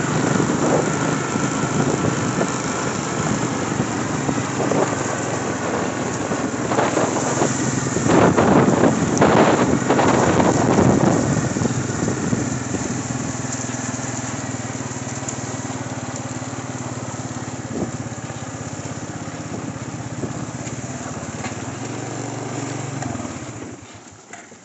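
ATV engine running steadily as the quad rolls along, with a louder, noisier stretch about eight to eleven seconds in. The engine cuts off about a second before the end.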